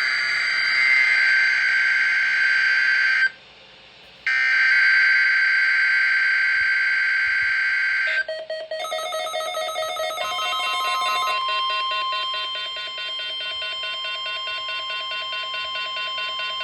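NOAA Weather Radio alert signalling for the weekly alarm test: two stretches of screechy digital data tones, the SAME header, separated by a short break. About halfway in, a fast repeating electronic beeping starts, and soon after a steady warning alarm tone sounds beneath it.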